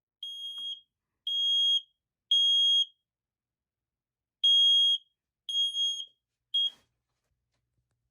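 Smoke alarm's piezo horn sounding the three-beep evacuation pattern: two groups of three high-pitched beeps with a pause between them. The last beep is cut short and followed by a click as the alarm stops.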